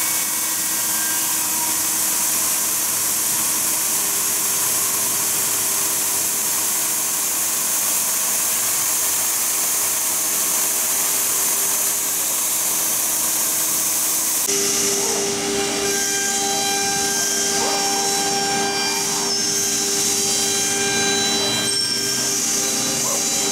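GDZ-125-6 high-speed CNC router spindle milling a metal plate while the coolant mist nozzle sprays with a strong hiss. About two-thirds of the way in the hiss stops, leaving a steady machine hum with a few light knocks.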